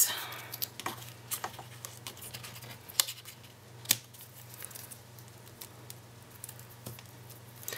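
Scissors snipping a length of red Sticky Strip double-sided tape from its roll, with scattered light clicks of handling and two sharper snips in the middle, over a faint steady hum.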